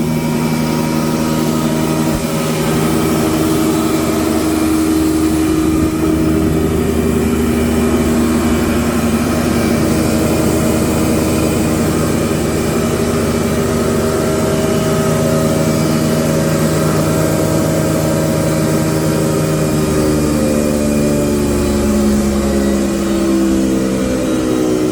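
Krasny Metallist SR6-10 industrial thickness planer running: a loud, steady machine hum made of several pitched tones. Its pitch sags slightly over the last several seconds.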